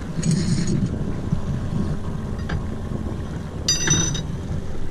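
Wind buffeting the microphone aboard a small catboat under sail, a steady low rumble with water washing along the hull. There is a short hiss about half a second in and a brief high squeak near the end.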